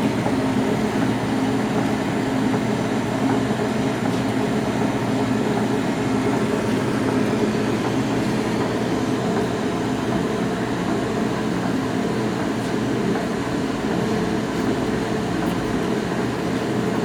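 Oliver Model 600 drill grinder running with a steady, unbroken machine hum.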